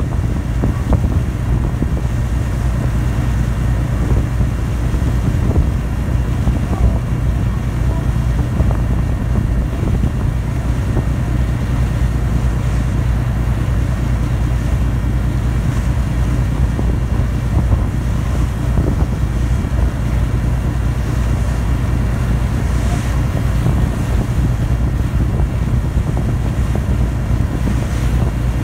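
Passenger ferry under way: a steady low engine drone, with wind noise on the microphone and the rush of sea water.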